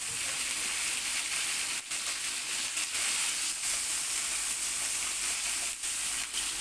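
Frozen minced meat frying in a hot pan: a steady sizzling hiss, with two brief dips about two seconds in and near the end.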